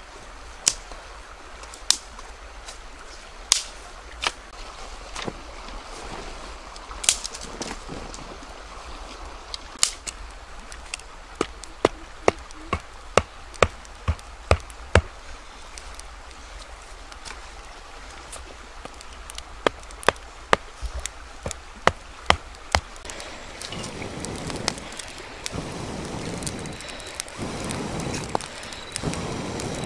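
Sharp chopping strikes of a blade into firewood: single blows at first, then a quick run of about two a second, and another run a little later. A louder rushing noise builds near the end.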